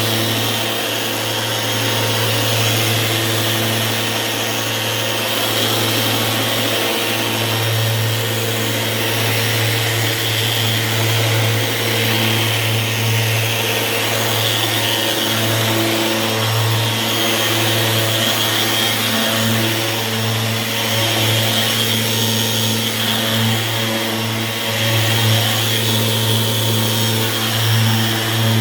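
Rotex orbital sander running steadily against a Corian countertop, with a low hum that swells and dips as the pad is worked over the surface to sand out scratches.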